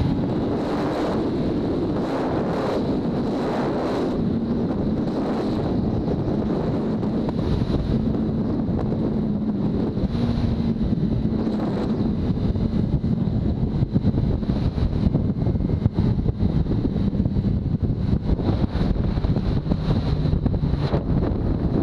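Motorcycle running at highway speed, its engine a steady drone under heavy wind noise on the camera microphone; the wind gets rougher and more fluttering in the second half.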